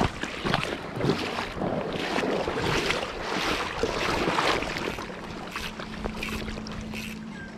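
Wind buffeting the microphone over a rushing river, with rough rustling and knocks as the fishing line and rod are handled, loudest in the first few seconds. A faint steady hum comes in during the second half.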